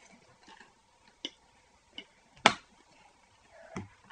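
A few short, sharp clicks and one loud knock about two and a half seconds in, from spoons and jars being handled on a table.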